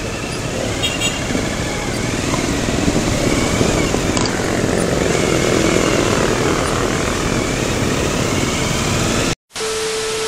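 Motorcycle pulling out and riding through traffic, its engine running under steady wind and road noise, heard from a camera mounted on the bike. Near the end the sound cuts out for a moment, then a steady test-pattern beep sounds.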